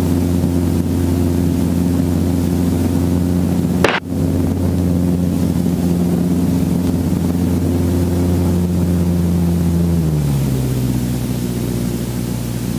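Helicopter engine and rotor running steadily at close range, with a short dropout about four seconds in. About ten seconds in the hum steps down in pitch as it winds down.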